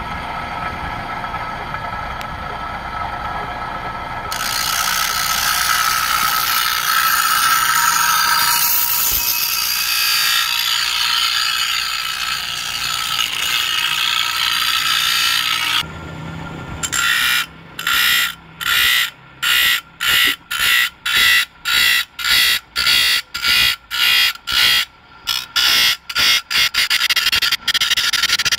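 Electric motor spinning a thin abrasive disc, grinding the teeth of a steel handsaw. A steady whine at first, then continuous grinding from about four seconds in. Past the halfway mark it breaks into short grinding rasps about twice a second as the teeth are touched to the disc one after another.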